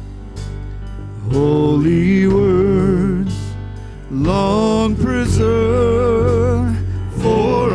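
Worship song sung with instrumental accompaniment: a voice in three phrases, starting about a second in, near the middle and near the end, with long wavering held notes over a steady low backing.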